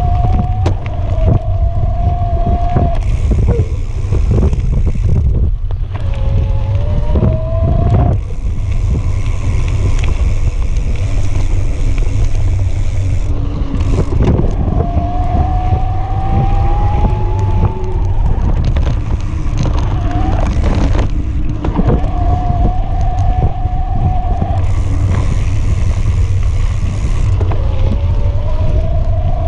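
Electric mountain bike riding over a dirt trail: heavy wind rumble on the bike-mounted camera's microphone, with a thin motor whine that rises and falls in pitch and cuts in and out, and knocks and rattles from the knobby tyres and frame over the rough ground.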